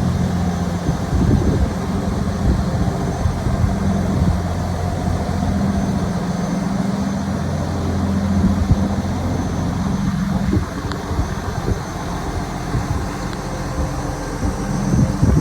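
DAF LF260 lorry's diesel engine idling steadily, a low even hum that shifts slightly in tone about ten and a half seconds in.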